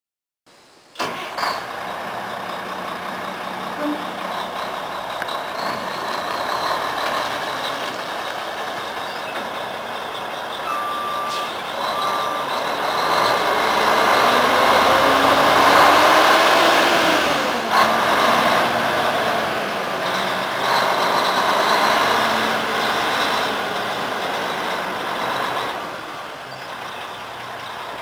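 1988 Mack RD688S tri-axle dump truck's diesel engine running as the truck drives across the lot, starting about a second in and getting louder at the middle, with the engine pitch rising and falling. A backup alarm beeps a few times a little before the middle, and there is a short sharp sound a little past the middle.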